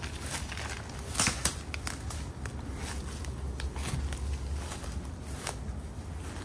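Footsteps pushing through tall grass and brush, uneven crunching steps with leaves and twigs rustling and snapping, over a low steady rumble.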